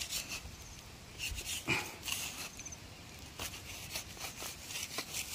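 Light rustling and scraping of grass and dry leaves, in short irregular strokes, with a brief sound falling in pitch about a second and a half in.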